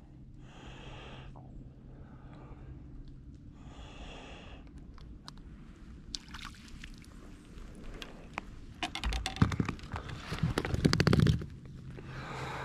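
Handling noise in a small fishing boat: a run of clicks, scrapes and rustles that grows heavier with a few low thumps in the second half, over a steady low hum.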